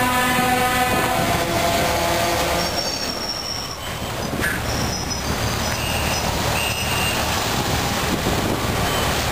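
Heavy lorries driving past in a convoy, a steady mix of diesel engines and tyre noise. A truck's horn sounds for about two seconds at the start, and brief thin high tones follow a few seconds later.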